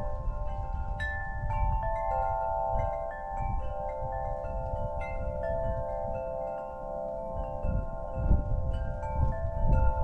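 Wind chime ringing in gusty wind, its metal tones struck at irregular moments and overlapping as they ring on. Wind rumbles low on the microphone, strongest in a couple of gusts near the end.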